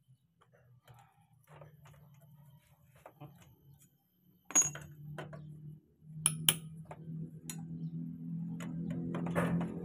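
Metal clinks and sharp taps of a T-handle socket wrench being fitted onto a bolt of a motorcycle engine, at the start of removing the automatic cam chain tensioner. The loudest clicks come about halfway through, and a low hum builds in the background toward the end.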